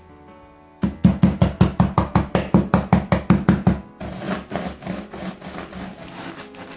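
Wooden rolling pin pounding graham crackers inside a thick plastic bag, a fast run of about six knocks a second starting about a second in. About halfway through it changes to the pin rolling back and forth over the crumbs, a quieter crunching rustle.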